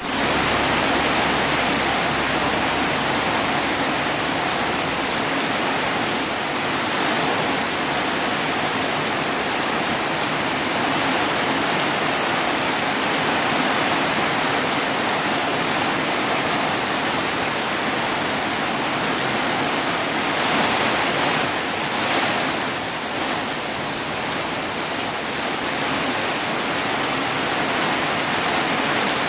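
Steady rain falling: a dense, even hiss with no single drops standing out, swelling a little for a couple of seconds about two-thirds of the way through.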